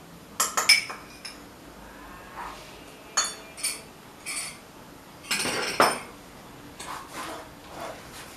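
Metal spoon and spatula clinking and scraping against a wok as a thick tamarind paste is stirred: a run of short, ringing clinks, with the loudest cluster about five and a half seconds in.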